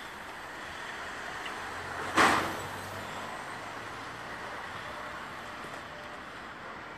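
Street traffic noise, a steady hiss, with one loud, short burst of hiss about two seconds in that fades within half a second.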